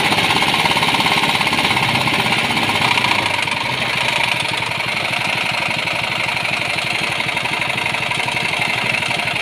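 Chinese-made GX160-type single-cylinder four-stroke petrol engine running after repair, with a fast, even firing beat. It runs a little louder for the first three or four seconds, then settles to a steady lower pace as its throttle linkage is eased.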